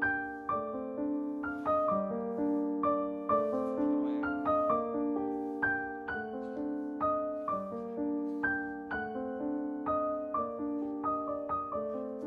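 Background piano music: a steady, gentle run of single notes struck and fading over soft held chords.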